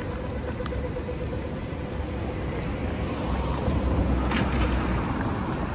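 City street traffic: steady engine and tyre noise from passing cars, swelling as a vehicle passes closer about three to five seconds in.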